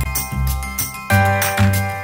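Background music with sustained melodic notes over a steady bass beat.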